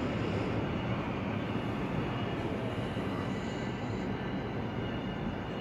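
Train of AnsaldoBreda P2550 light rail cars pulling away, its running noise steady and slowly fading as it recedes.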